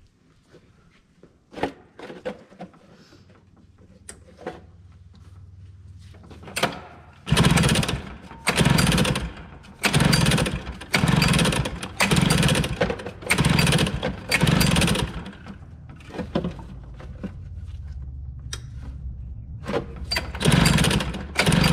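The small engine of a 1992 Arctic Cat Kitty Cat being pull-started, after a carburettor float adjustment. The recoil cord is yanked about once a second for a run of some eight pulls, each pull a loud burst of cranking. A steadier low sound follows, then two more pulls near the end.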